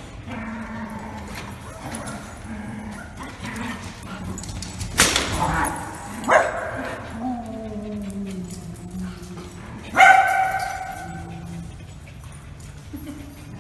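Dogs barking in play: a sharp bark about five seconds in, another just after, and a loud yelping bark about ten seconds in.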